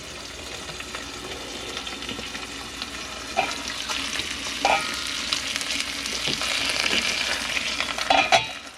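Food sizzling in a frying pan and being stirred, with a few short utensil clinks against the pan.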